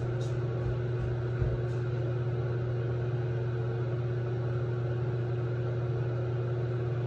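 A steady low motor hum with a constant pitch, like a running household appliance or fan.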